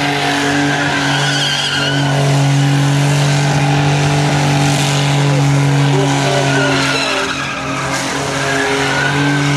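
Holden VN Commodore doing a burnout: the engine is held at steady high revs while the spinning rear tyres squeal. The engine note falls away briefly about seven seconds in, then picks up again.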